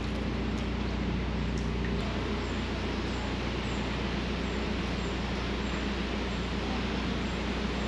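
A narrowboat's engine running steadily under way, a low, even drone.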